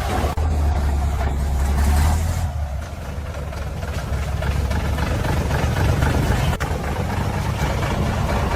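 Heavy truck engine running under a steady low rumble, easing briefly about two and a half seconds in and then building back up.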